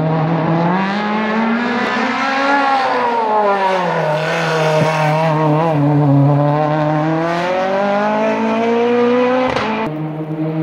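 Renault Clio hillclimb car's engine revving hard as it climbs toward the hairpin. Its pitch drops as it slows for the bend around the middle, then rises again as it accelerates out, with a brief break near the end at a gear change.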